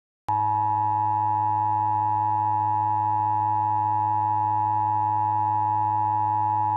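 Emergency Alert System attention signal: a loud, steady two-note electronic alarm tone that starts about a quarter second in and holds without a break, announcing a new alert.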